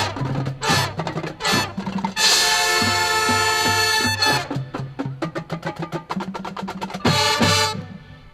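Marching band brass and drumline playing. A long chord is held in the middle, and sharp drum-accented hits follow. A final loud chord cuts off near the end.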